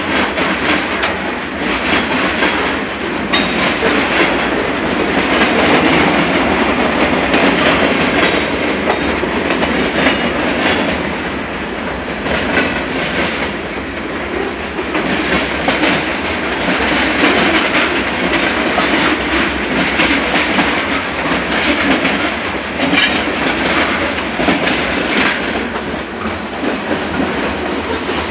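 Freight cars of a Norfolk Southern freight train rolling past close by: a loud, steady rumble and rattle of steel wheels on the rails.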